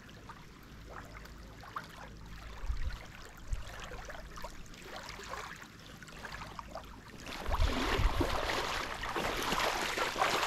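Small waves lapping faintly at the lake's edge; from about seven seconds in, a person in waders wades through shallow water toward the bank, the water splashing loudly and unevenly around the legs.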